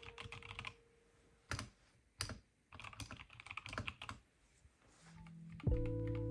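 Typing on an Epomaker Mini Cat64 mechanical keyboard with linear switches: a few clicks, two single heavier strokes, then a quick run of keystrokes. Music comes in near the end.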